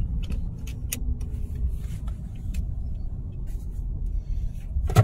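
Ram 2500 pickup driving, heard from inside its cab: a steady low engine and road rumble, with a few light clicks and rattles.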